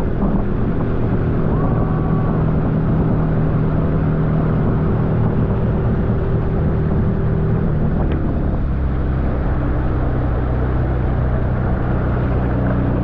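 Outboard motor of a small aluminium boat running under way, steady, with the rush of wind and water over it; the engine note shifts a little about eight seconds in.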